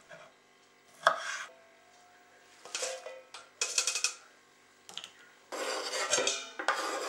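Knocks and clatter of a stainless steel mixing bowl as salad leaves are tipped in from a colander, the bowl ringing on after a knock about a second in. Near the end, a longer scraping as chopped tomato and shallots are scraped off a wooden chopping board into the bowl.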